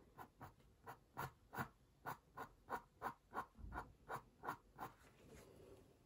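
Fine-liner pen nib scratching quick, short hatching strokes on watercolour paper, about three strokes a second, stopping about five seconds in.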